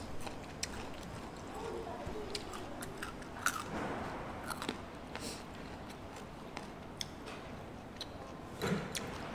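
Close-miked chewing and biting of fried chicken, with small scattered crunches and mouth clicks. A louder knock comes near the end.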